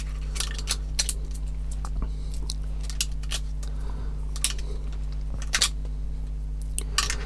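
Hands handling and coiling stiff wires on a radio-control car chassis: scattered light clicks and ticks, over a steady low hum.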